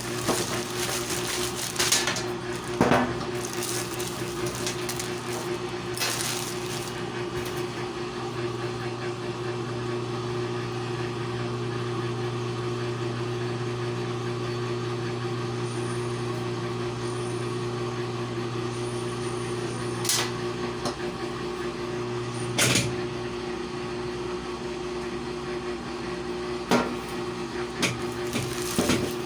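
Steady electrical hum of a running appliance. It grows stronger for a stretch in the middle, and a few short knocks and clicks sound over it.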